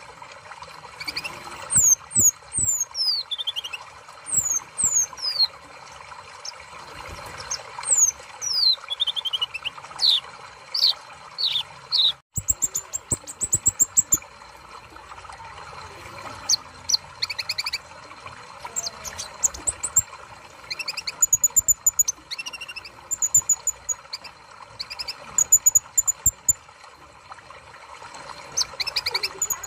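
Kolibri ninja sunbird singing: bursts of quick, high-pitched notes that slide downward, a rapid chirping trill about halfway through, then short repeated high chirps.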